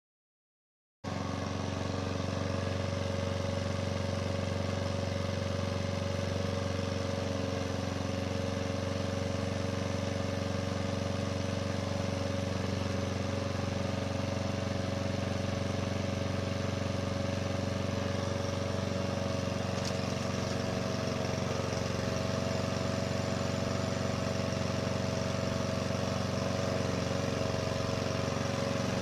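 PowerSmart 21-inch push mower's 144cc OHV single-cylinder engine running at a steady speed, cutting in abruptly about a second in.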